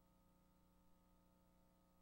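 Near silence: only a faint, steady hum.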